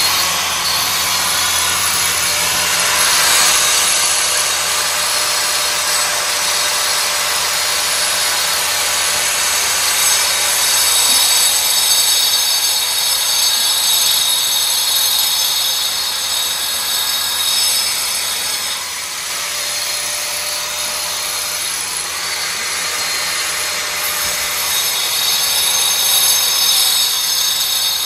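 Handheld angle grinder with a cutting disc running continuously and cutting into a cement-plastered wall: a steady high whine over gritty grinding noise, swelling and easing a little as the disc bites.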